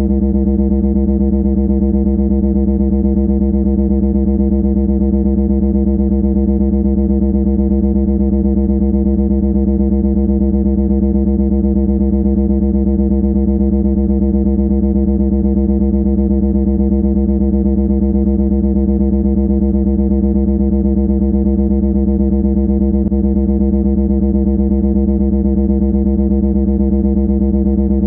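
A loud, steady, low buzzing drone that holds one pitch without change, much like a distorted electric hum.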